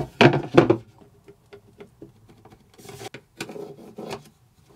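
Pencil and straightedge scraping and tapping on a wooden plinth board while a cut line is marked out: faint scattered scratches and light ticks. A few louder knocks come in the first second.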